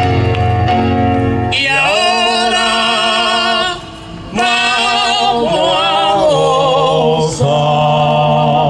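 Salsa music with singing: an instrumental passage gives way, about one and a half seconds in, to long held sung notes with vibrato, with a brief drop in the music about four seconds in.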